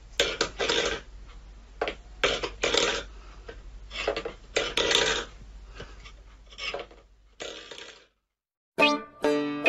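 Stainless steel pet bowl scraped and rattled on a wooden floor by a cat's paw, in about six short bursts. Music begins near the end.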